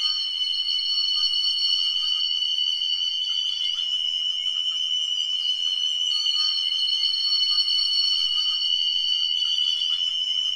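Electronic music of high, steady tones: one piercing tone held throughout, with higher tones fading in and out in slow waves about every six seconds.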